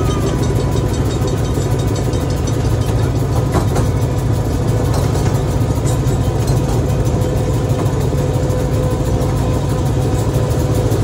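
Miniature train running along its track: a steady low engine drone with a faint higher whine, unchanging throughout.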